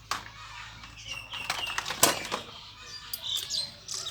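Hard plastic toys knocking and clattering as they are handled and picked through, with the sharpest knock about two seconds in and a few short high squeaks near the end.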